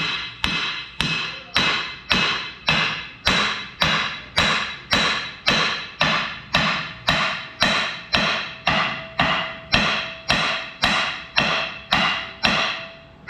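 Hammer blows driving a driveshaft yoke onto its splined shaft beside the carrier bearing, a tight fit. The blows are steady and evenly paced, a little under two a second, and each one rings with a metallic tone.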